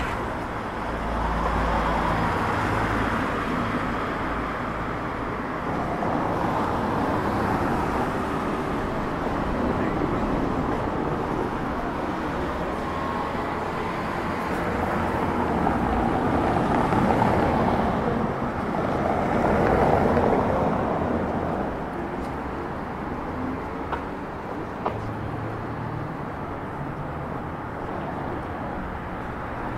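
Street traffic noise: a steady wash of road noise that swells several times as vehicles pass.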